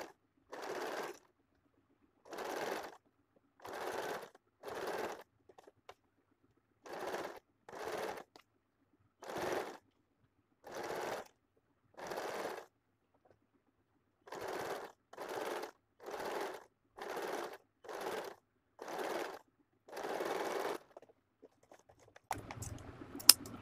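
Electric home sewing machine stitching in about sixteen short runs, each under a second long with brief pauses between, as it sews piping onto fabric. Near the end the stitching stops and a faint hum follows, with a few sharp clicks.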